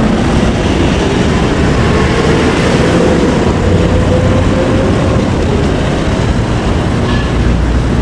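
Heavy street traffic passing close by: a loud, steady rumble of engines and tyres with a faint drawn-out whine that dips and rises.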